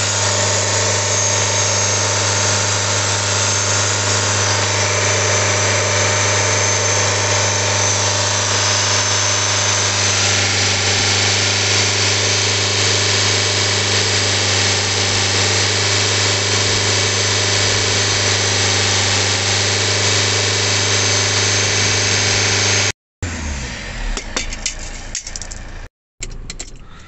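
Saab 9-3 diesel engine running steadily at raised revs, about 2000 rpm, with its intake hose open while water-based carbon cleaner is sprayed into the intake ahead of the turbo: a decarbonising treatment for an exhaust gas recirculation (EGR) fault. The engine sound breaks off abruptly about 23 seconds in, followed by a key rattling in the ignition.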